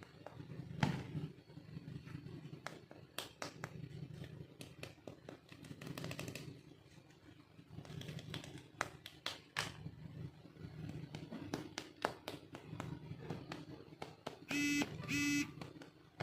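Plastic toy pieces clicking and tapping as they are handled, with two short electronic beeps from a toy near the end.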